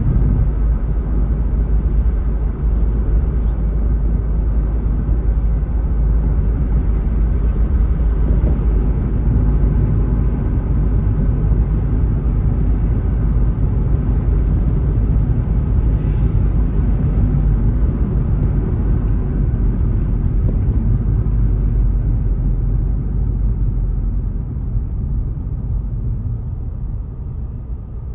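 A car driving along: a steady low rumble of tyre and engine road noise, dying down over the last few seconds as the car slows toward a stop.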